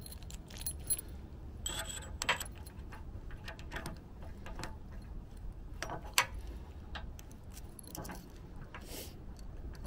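Scattered light metal clicks and a key jangling on its ring as the lock head of a Bulletproof Hitch locking hitch pin is pushed onto the pin end and shimmied back and forth to seat and lock it.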